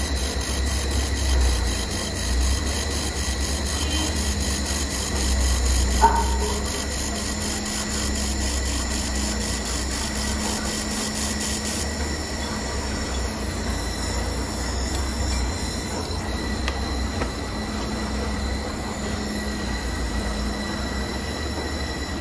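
Handheld fiber laser welder (IPG LightWELD XR) running a filler-wire weld around a stainless steel tube, the laser modulated to pulse about four times a second, over a steady high-pitched whine and low hum from the machine. About twelve seconds in the pulsing stops as the weld ends, while the whine and hum go on; a brief squeak sounds about six seconds in.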